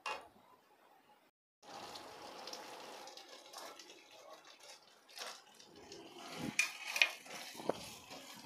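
Thick sauce with fried soya chunks sizzling in a kadai, a steady faint hiss that starts about a second and a half in. A silicone spatula stirs and scrapes the pan, with a few sharper clicks near the end.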